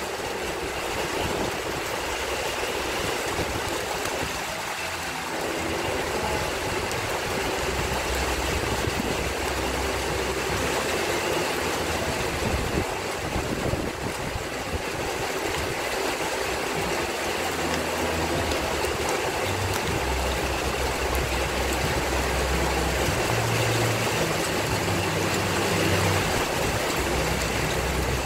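Thunderstorm rain and wind making a dense, steady hiss, with a low rumble coming and going from about eight seconds in.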